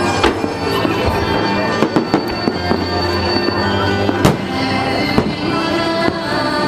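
Fireworks bursting, with sharp bangs at irregular intervals and the loudest a little past halfway. Music with long held notes plays underneath.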